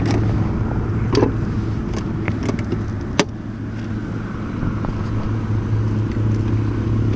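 Motorcycle engine idling steadily at a standstill, with a few short clicks and rustles of gloves and handling in the first few seconds.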